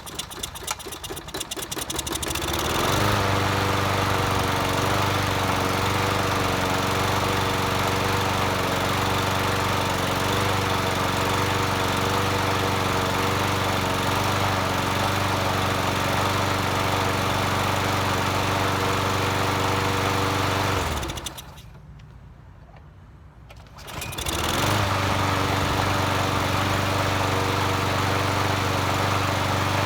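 Small lawn mower engine, on an MTD Yard Machines mower, turning over and catching about two and a half seconds in, then running steadily. It stops about 21 seconds in, is started again a few seconds later and runs on.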